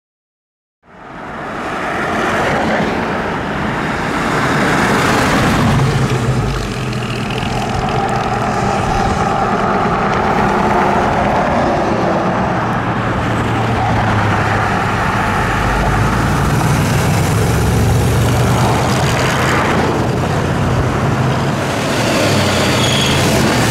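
1970 Chevrolet Chevelle SS 454's LS5 big-block V8 engine running as the car drives, a loud, steady engine and road sound that starts abruptly about a second in.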